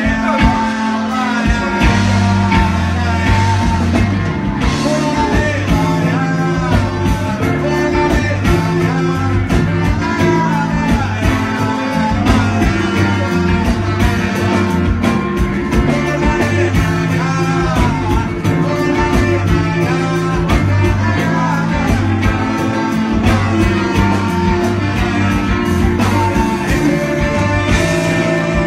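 Live band playing through a PA: electric guitar, saxophones and drums over a repeating bass line.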